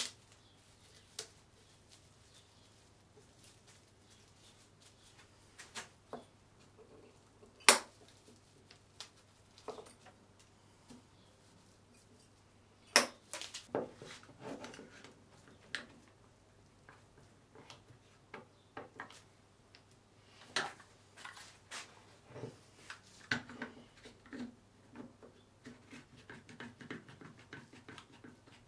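Scattered knocks and clicks of wooden parts and clamps being handled on a workbench during a headstock veneer glue-up, with two sharp knocks in the first half and a denser run of small clicks in the second half as blue one-handed trigger bar clamps are squeezed tight.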